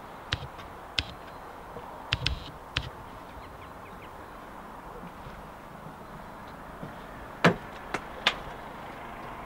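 Scattered sharp clicks and knocks, several with a dull thump beneath, over a steady hiss. A cluster of three knocks comes near the end, the first of them the loudest.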